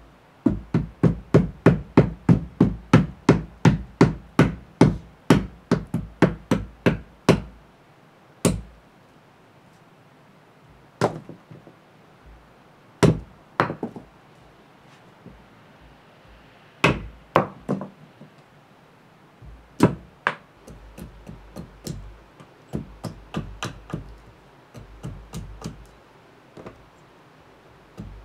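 A small Gränsfors Bruks axe hewing a birch spoon blank on a wooden chopping block. A quick, even run of sharp chopping strikes, about three a second, lasts about seven seconds. Single strikes then come a few seconds apart, and near the end there is a run of lighter, quicker chops.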